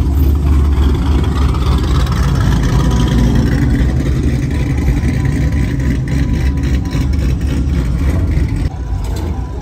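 Low engine and exhaust rumble of cars and a pickup rolling slowly past, loudest in the first three seconds as a Chevrolet Camaro drives by, then a white Dodge Ram pickup passes.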